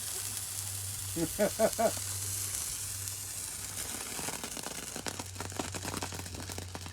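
Ground firework fountain spraying sparks with a steady hiss that thins out after about three seconds into scattered crackling as it burns down. A short voice sound cuts in about a second in.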